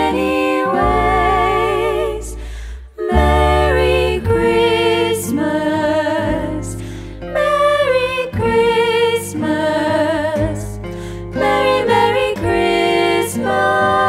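Three women singing in close harmony with vibrato, accompanied by acoustic guitar and upright double bass, with a short break about three seconds in.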